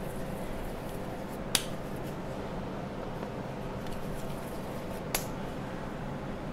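Steady low room hum with two short, sharp clicks about three and a half seconds apart.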